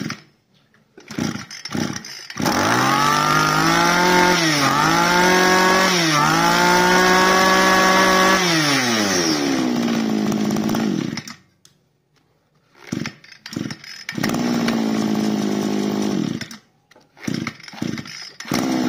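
Iseki 261 26cc two-stroke brush cutter engine pull-started. It runs fast with two brief dips in speed, then winds down and stops about eleven seconds in. After a pause it is pulled again, runs for a couple of seconds and cuts out, then starts once more near the end and keeps running.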